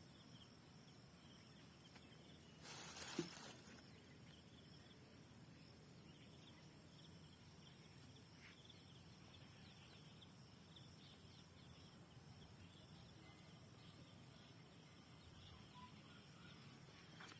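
Faint, steady high-pitched insect chirring, an even trill that runs on unchanged. About two and a half seconds in comes a brief rustle, the loudest sound.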